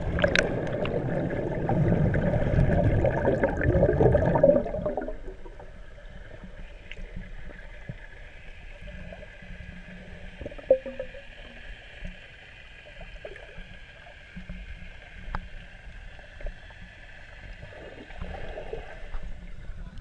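Swimming-pool water heard underwater through a camera housing: loud churning and bubbling for about the first five seconds, then a quieter muffled background with scattered faint knocks and splashes.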